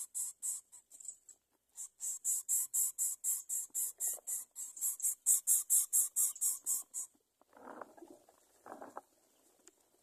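Greater coucal nestling begging: a fast, even run of short, high, hissing calls, about five a second, with a short break near the start, stopping about seven seconds in. Two lower rustling scuffles in the nest follow.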